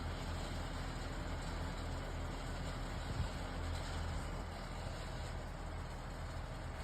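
Steady low engine rumble with a broad noisy hiss, unchanging throughout.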